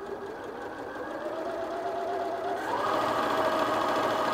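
Janome Sewist 740DC computerised sewing machine stitching, its speed being turned up from slow to fast on the speed slider. The whine rises and grows louder, climbing gradually at first and then jumping up about three seconds in.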